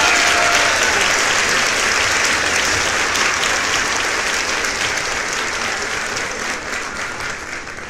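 Crowd applause: dense, many-handed clapping that gradually fades toward the end.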